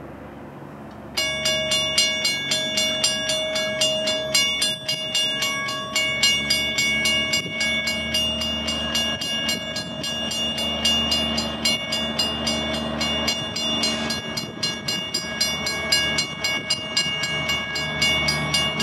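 A railroad bell rings rapidly and continuously, several strikes a second, starting suddenly about a second in as a train approaches.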